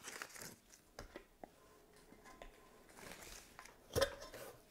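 Faint paper rustling and small handling clicks, then a single knock about four seconds in as the lid is fitted onto a stainless steel insulated double-wall mug.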